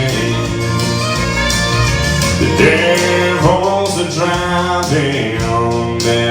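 Country-bluegrass music with guitar and fiddle, and a voice holding long, wordless notes.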